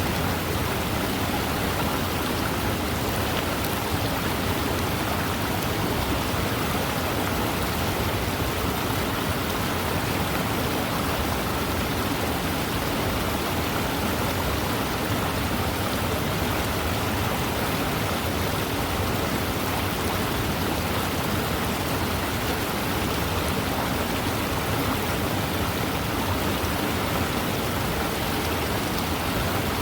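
Waterfall pouring: a steady, unbroken rush of falling water with no changes or separate sounds.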